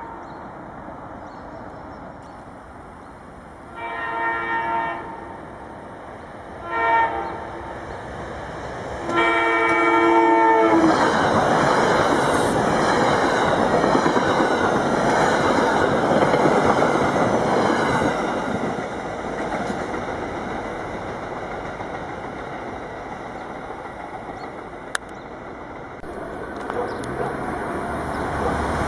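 SEPTA Silverliner electric commuter train sounding a multi-tone horn in long, short and long blasts, the end of a grade-crossing signal, then passing close at speed with a loud rush of wheel and rail noise that fades away over several seconds. Near the end another train's approach grows louder.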